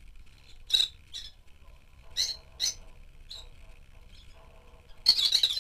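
Rosy-faced lovebirds calling: five short, high single chirps spaced about half a second to a second apart, then a quick burst of chirps near the end.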